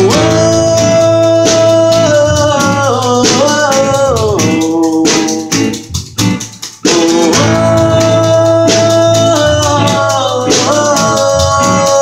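Guitar music: a phrase with a long held note that slides down in steps, played twice.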